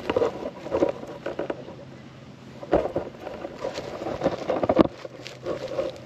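Handling noise from a camera being set up on a bale: irregular rustling, scraping and knocks in three spells.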